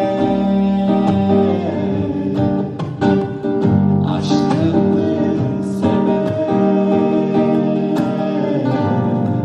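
Live acoustic music: an acoustic guitar played under a man and a woman singing a slow pop song.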